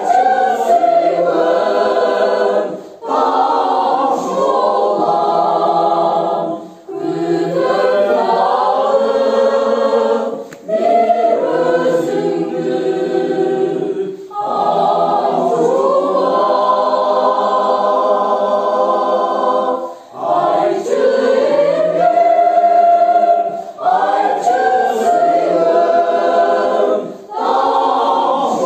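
Mixed choir of women's and men's voices singing a song in sustained phrases of a few seconds each, with short breaks between phrases.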